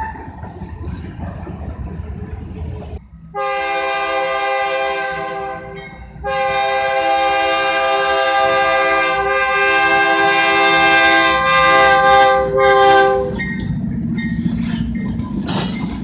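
Diesel freight locomotive's air horn sounding two blasts, a short one of about two seconds and then a long one of about seven seconds, several steady tones together. Before it, a passing freight train rumbles; after it, the locomotive's engine rumble grows as it nears.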